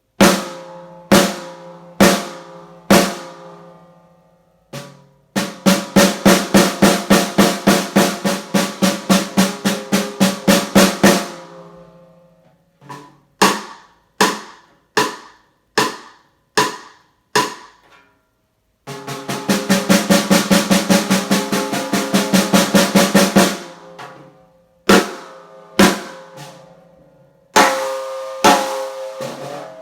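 PDP Concept Birch 14x5.5 seven-ply birch snare drum played with the snares on, undampened, each stroke ringing with overtones. It opens with four single strokes about a second apart, then a fast roll of about six seconds. Scattered single hits follow, then a second roll that builds in volume, and single strokes to finish.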